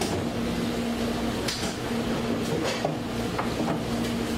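Restaurant kitchen background: a steady machine hum with a few light clicks and knocks, the clearest about one and a half seconds in.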